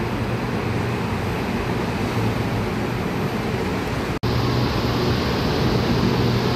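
Steady hum and rushing noise of a Bangkok MRT Yellow Line monorail train (Innovia Monorail 300) at an elevated station. It breaks off for an instant about four seconds in, then goes on as steady monorail running noise, slightly louder.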